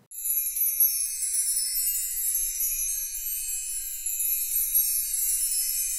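Outro music of high, tinkling chimes: a steady wash of many ringing tones with nothing in the low or middle range, cutting in suddenly.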